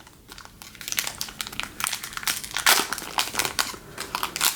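Plastic trading-card pack wrapper crinkling and rustling as it is handled, a dense run of quick, irregular crackles.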